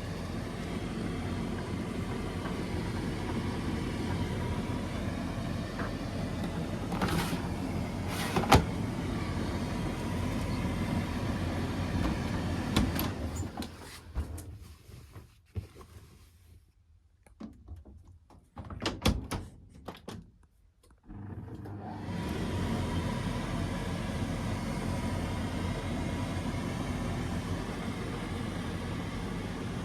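Hotpoint tumble dryer running, a steady motor-and-drum hum with a couple of sharp knocks. About halfway through the running stops for several seconds with only a few clicks, then the dryer starts up again.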